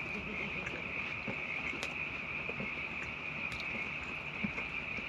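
Crickets trilling steadily in a continuous high-pitched chorus, with a few faint clicks over it.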